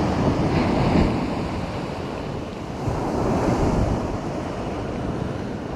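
Ocean surf washing on a beach, with wind buffeting the microphone; the wash swells briefly about three seconds in.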